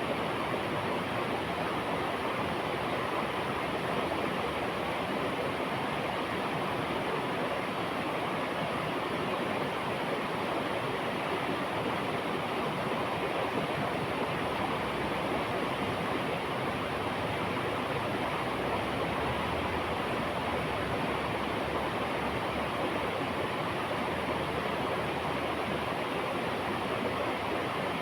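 River water rushing in a steady, even wash.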